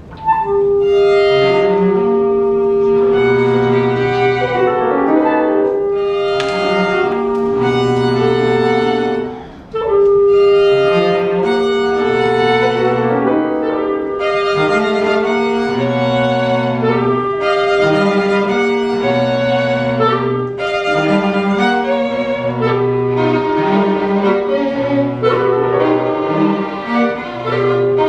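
Live chamber quartet of violin, cello, clarinet and piano playing a contemporary piece: a long held note over low notes recurring every few seconds and shifting chords, with a brief break about ten seconds in.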